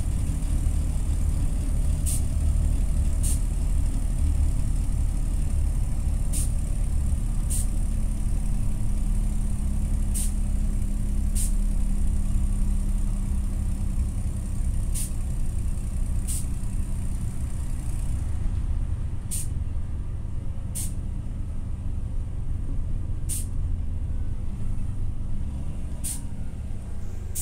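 TCV Karat city bus engine running as the bus drives, heard from inside the cabin as a steady low drone with a hum; the engine sound is, in the uploader's words, extremely broken. Short sharp high ticks come every few seconds, often in pairs, and the drone eases somewhat about two-thirds of the way through.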